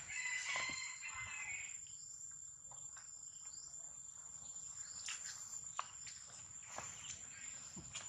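Steady high-pitched insect drone from the surrounding forest, with a brief high call about half a second in and a few faint ticks later on.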